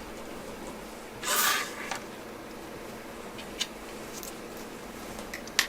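Steady background hiss with a brief rustling swish about a second in, then a few small sharp clicks, the sharpest near the end.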